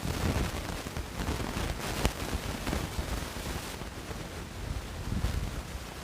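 Onion and tomato sautéing in oil in a pan, giving a steady crackling sizzle, with a single sharp click about two seconds in.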